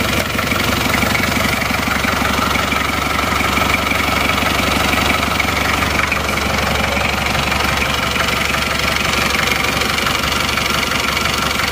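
Isuzu Panther 2.3-litre four-cylinder diesel engine idling steadily with an even diesel clatter. It runs evenly and is in sound condition, with compression still very good seven years after a rebuild with new liners.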